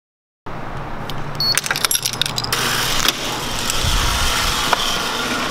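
Silence, then about a second in a bunch of keys jangling and clinking, followed by a steady rushing noise with a few knocks from the camera being carried.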